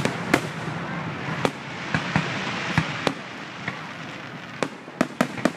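Fireworks display: aerial shells bursting in a string of sharp, irregularly spaced bangs, with a quick cluster of bangs near the end, over a steady background hiss.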